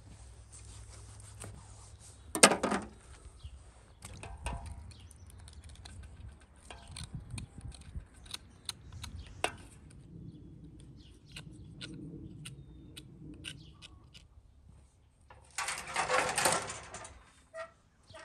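Kitchen utensils and dishes being handled during food preparation: scattered clicks, clinks and knocks, a louder knock about two seconds in, and a short burst of rushing noise near the end.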